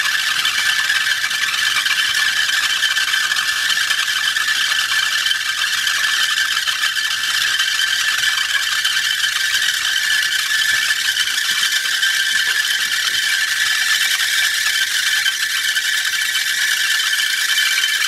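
Orbeez water-absorbing polymer balls skittering and bouncing on a hot frying pan, giving a steady high hiss with a few held whistling tones. The balls ride on a layer of their own steam (the Leidenfrost effect), so they bounce instead of settling or burning.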